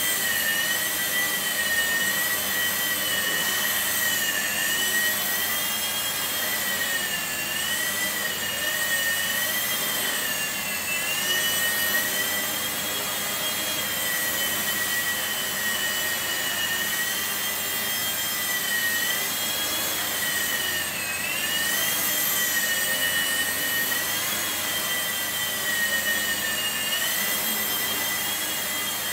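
Blade mSR micro RC helicopter flying, its small electric rotor motors giving a high whine that wavers up and down in pitch as the throttle changes, over a steady airy hiss.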